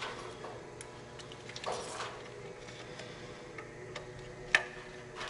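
Small clicks and scraping rattles of a wiring harness plug being handled and fitted to a Detroit Diesel 60 Series engine's ECM, with one sharp click near the end, over a faint steady hum.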